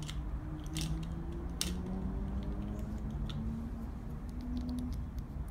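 Small sharp clicks of plastic Lego minifigure parts being handled, a few scattered taps, over a low hum that rises slowly in pitch.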